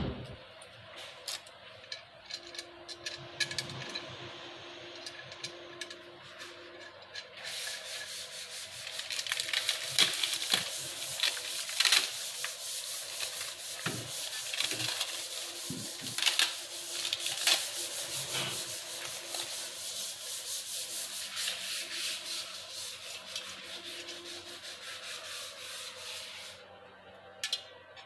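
Quick rubbing and scraping strokes on the wooden door during lock fitting, a dense hiss that starts about seven seconds in and stops about a second before the end. Before it come small scattered clicks of lock hardware being handled.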